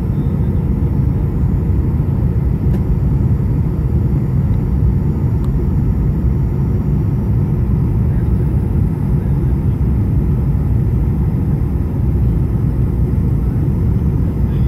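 Boeing 737-800 cabin noise on final approach, heard from a window seat beside the wing: a steady, loud low rumble of airflow and the CFM56-7B turbofan engines, unchanging throughout.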